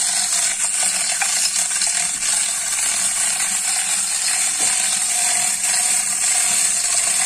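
Manual chain hoist being worked by hand: a fast, steady clicking of the ratchet pawl and the rattle of chain running through the block as it lifts a boat hull.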